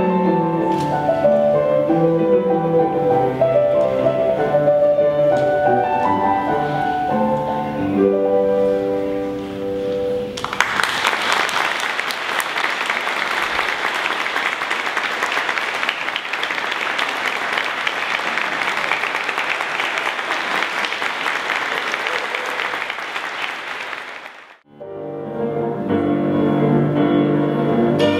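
Grand piano playing alone for about ten seconds, then an audience applauding for about fourteen seconds until it cuts off suddenly. In the last few seconds a violin with piano accompaniment begins.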